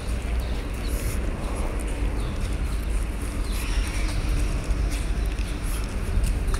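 Footsteps on a paved path over a steady low rumble on the microphone, with scattered light ticks.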